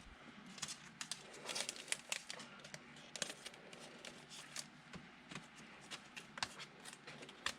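Faint crinkling and rustling of football trading cards and their pack packaging being handled, with scattered light clicks and taps.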